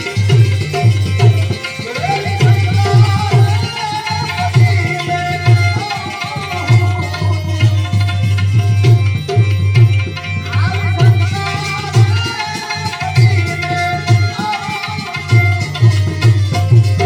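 Instrumental passage of a Gujarati devotional bhajan: hand drums play a steady rhythm with deep bass strokes under a melody instrument whose notes slide up in places.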